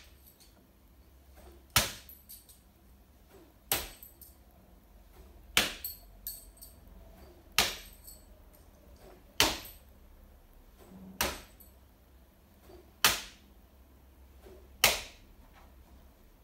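Bo shuriken, straight steel throwing spikes thrown without spin, striking a target board one after another: eight sharp knocks about two seconds apart, each with a brief ring.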